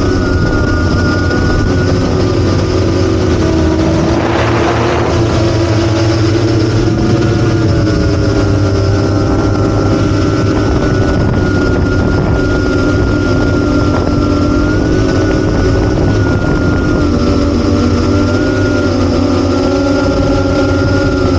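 8-inch FPV quadcopter's brushless motors and propellers running steadily, several tones drifting slightly in pitch with throttle changes, with a brief rush of wind noise about four seconds in.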